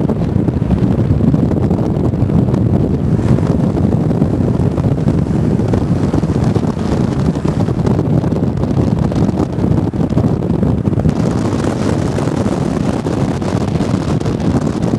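Wind buffeting the microphone of a moving car, over the steady noise of the car running along the road.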